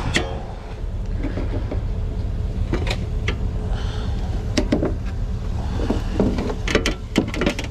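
A vehicle engine idling steadily, with scattered sharp clicks and knocks and a quick run of them near the end.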